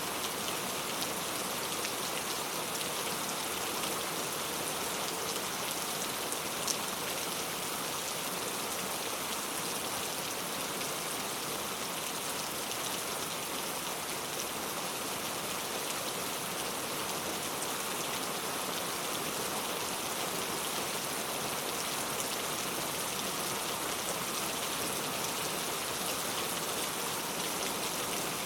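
Heavy rain falling steadily, a dense even hiss of drops on surfaces, with a single small tick about seven seconds in.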